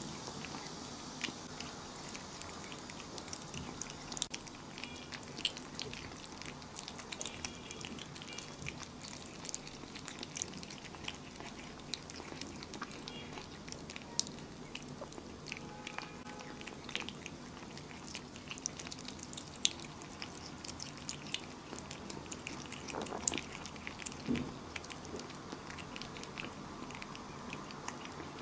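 Two kittens licking up raw egg yolk and chewing thin slices of raw meat, close-miked: a steady run of wet licks, smacks and small clicks.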